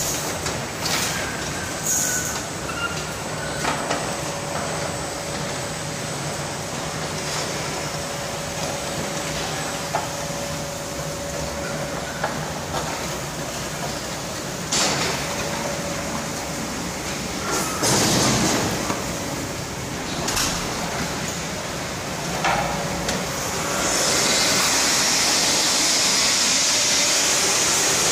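Tammermatic RoboJet tunnel car wash conveyor chain running with a steady mechanical rumble and a faint hum, broken by several short hissing bursts. About 24 s in, a loud steady hiss of water spray starts and carries on.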